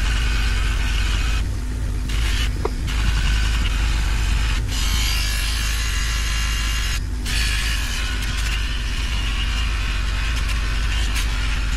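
Sealey bench grinder running steadily with a low motor hum. A metal stove part is pressed against its spinning wheel to strip the paint, making a hissing scrape that breaks off briefly several times as the part is lifted away.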